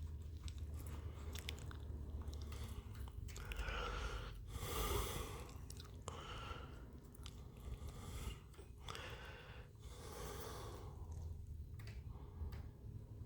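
Faint small clicks and scrapes of hands working epoxy into a cracked plastic fridge door frame, with two long breaths near the microphone, about four and ten seconds in, over a low steady hum.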